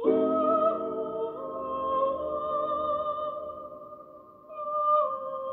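Slow background music of long held notes that shift pitch only a few times, with a brief dip in loudness just before a new note swells in near the end.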